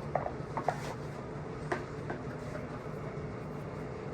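A few short, light clicks and taps in the first two seconds, typical of plastic and metal parts being handled, over a steady low background hum.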